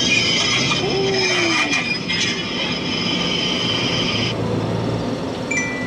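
High, steady squeal of a tow truck's brakes as it rolls in, cutting off about four seconds in. Near the end a vehicle's electronic chime beeps a few times.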